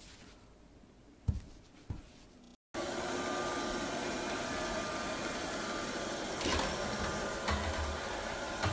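Two short thumps in a quiet room, the first the louder, about a second and two seconds in. Then, after a brief gap, a robot vacuum cleaner running with a steady whirring hum, with a few light knocks near the end.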